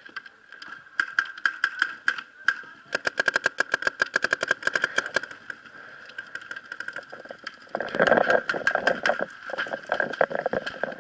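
Paintball marker firing in rapid strings of shots, at times about a dozen shots a second, with a louder, fuller stretch of firing near the end.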